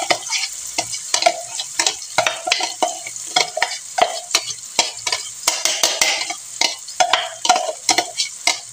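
Blended chili paste sizzling in hot cooking oil in a frying pan. A metal spoon scrapes and taps the paste out of a blender jug, making frequent clicks and short scrapes over the steady sizzle.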